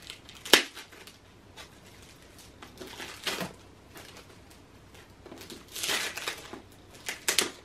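Clear plastic wrapping crinkling and crackling as a perfume gift box is unwrapped by hand: a sharp crackle about half a second in, then short spells of rustling near three seconds, six seconds and just before the end.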